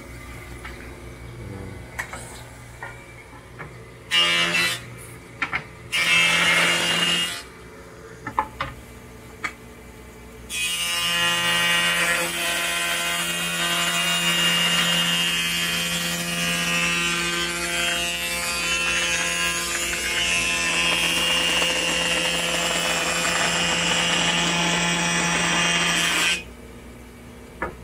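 Hammer A3 31 jointer-planer with a helical cutterhead surfacing an old pallet board: the machine runs with a steady hum, takes two short cuts about four and six seconds in, then a long continuous cut from about ten seconds in that stops abruptly near the end.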